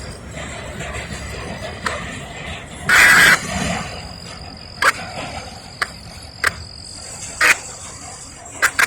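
Frogs and insects calling: a steady high insect trill under short, sharp calls at irregular intervals. A louder, noisier burst comes about three seconds in.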